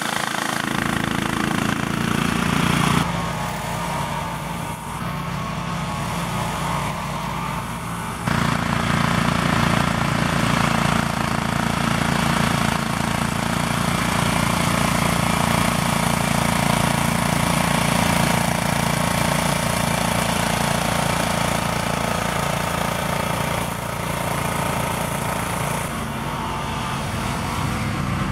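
An ATV and its homemade front-mounted mower, driven by its own small 11-horsepower engine, running steadily under load while cutting tall grass. The tone and level shift abruptly about 3 and 8 seconds in.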